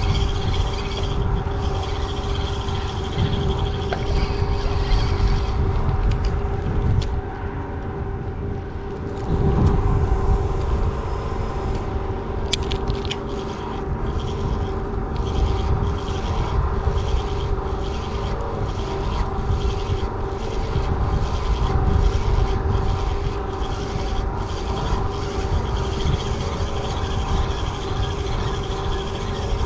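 A motor running steadily with an even, unchanging hum, under low wind rumble on the microphone.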